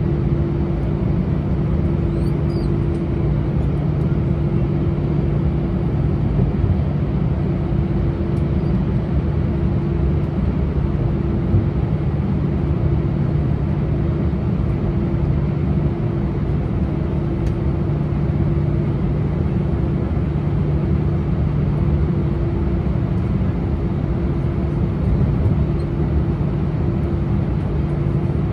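Steady cabin noise inside an Airbus A319 on the ground with its jet engines at idle: an even rumble with two steady humming tones, one low and one somewhat higher.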